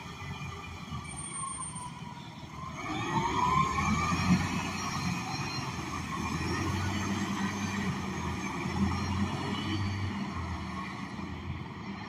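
Gillig BRT transit bus with a Cummins Westport L9N natural-gas engine and an Allison B300R transmission pulling away. About two and a half seconds in, the engine picks up and a whine climbs in pitch as the bus accelerates, then it runs on steadily as it drives off.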